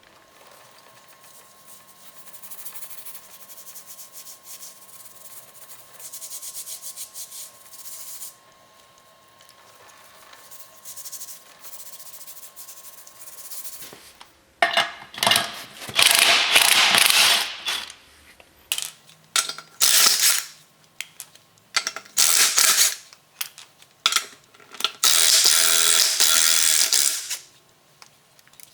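Power tool working on the axle in bursts: quieter clatter and handling for about half the time, then loud runs of one to three seconds, the longest two around the middle and near the end, with short blips between.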